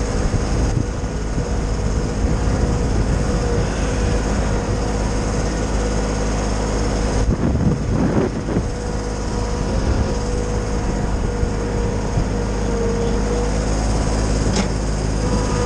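Kioti subcompact tractor and Titan wood chipper running steadily with a constant whine, the sound briefly wavering about halfway through.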